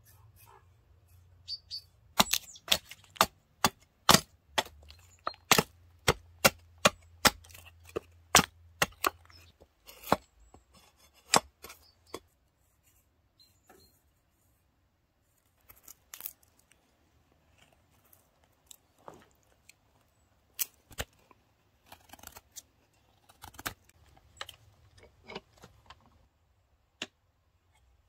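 Sharp chopping strikes on a block of paulownia wood as a spoon blank is roughed into shape. The strikes come about two a second for some ten seconds, then sparser and quieter.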